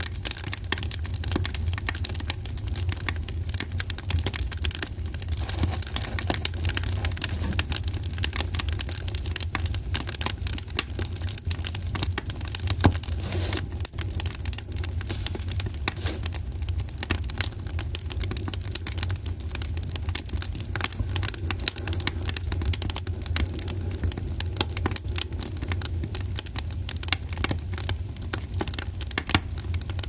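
Wood fire crackling and popping: a dense, irregular stream of snaps over a low steady rumble, with one louder pop about halfway through.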